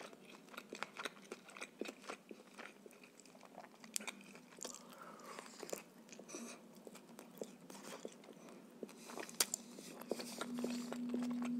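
Close-miked biting and chewing of a baked potato topped with salo (cured pork fat), with many small wet mouth clicks. A low steady hum comes in near the end.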